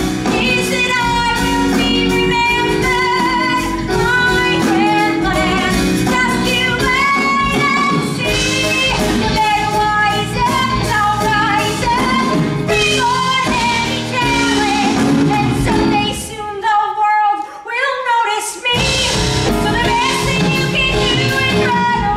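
A woman singing a musical-theatre solo over a live band. About sixteen seconds in, the band drops out for roughly two seconds, leaving her voice almost alone, then the accompaniment returns.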